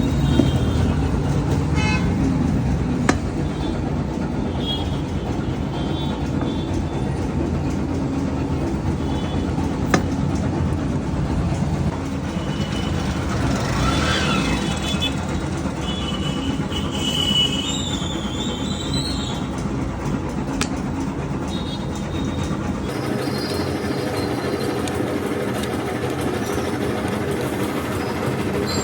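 Steady rumbling noise with a few brief high-pitched squeals, the kind heard from a passing train.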